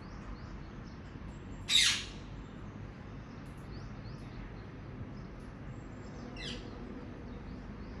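A parakeet gives one loud, harsh screech about two seconds in, then a shorter, fainter call falling in pitch about six seconds in, with faint bird chirps in the background.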